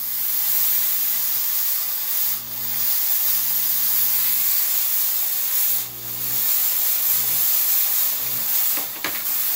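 American DJ Fog Fury Jet fog machine firing a vertical jet of fog: a loud, steady hiss over a low hum, with brief dips about two and a half and six seconds in, stopping near the end.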